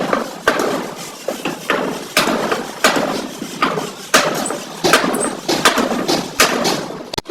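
Hammer blows on the sheet-steel body of a Suzuki Bolan van during panel beating, a steady run of ringing strikes about one to two a second.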